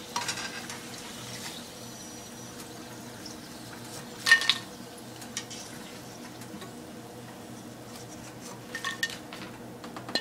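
A metal slotted spoon clinking against a wok and plate while fried raw-banana slices are lifted out of hot oil, with one sharp clatter about four seconds in and lighter clicks near the start and near the end. The frying oil bubbles softly underneath.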